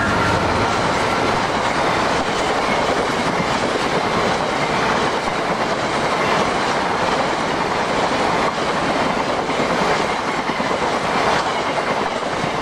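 A long freight train of empty bogie tank wagons passing at speed: a steady din of wheels on the rails with clickety-clack from the wheel sets.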